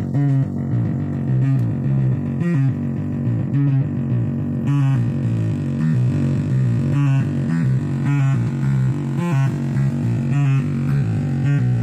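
Modular synthesizer sequence of sine-wave tones run through a breadboard op-amp Big Muff-style distortion circuit, playing a low pitched pattern that steps between notes, with a sharp attack a little more than once a second.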